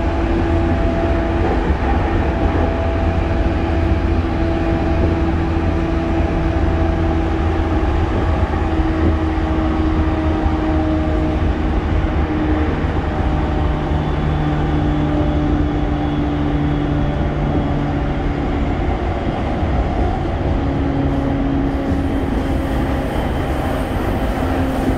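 Running noise heard inside an E231-1000 series electric train car: a steady rumble of wheels on rail, with the whine of its Hitachi IGBT-VVVF inverter and traction motors, several faint tones that slowly step down in pitch as the train slows.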